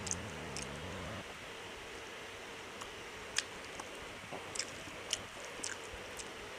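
A person chewing a mouthful of rice and curry, with scattered small wet clicks and smacks over a steady hiss. A low hum stops about a second in.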